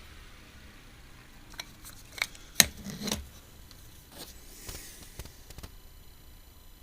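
Small, scattered clicks and taps of the parts of a Canon EF 35-80mm zoom lens and small tools being handled during disassembly, about eight in all, the sharpest a little over two and a half seconds in.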